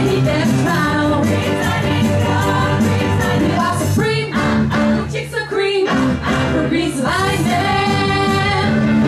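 Live rock-and-roll band with electric guitars and keyboard playing while two women sing lead. The band's low end drops out for a moment about five seconds in, then comes back in.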